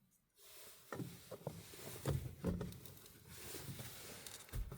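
Handling noises from pipe fittings being fitted by hand: scattered light knocks and clicks with rubbing between them.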